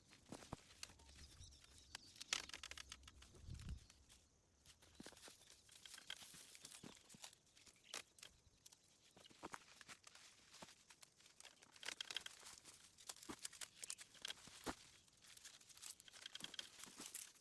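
Faint rustling and crinkling with scattered soft clicks as tomato plants and twine are handled and tied.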